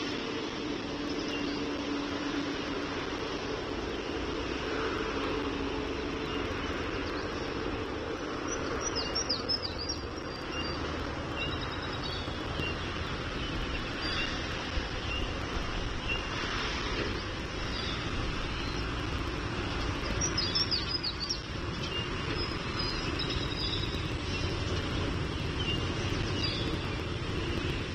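Steady outdoor background rumble with a low hum, like distant machinery, with short series of high bird calls twice, about nine and twenty seconds in.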